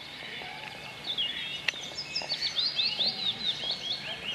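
Small songbirds chirping and singing: quick, high, repeated notes that start about a second in and carry on, with one sharp click near the middle.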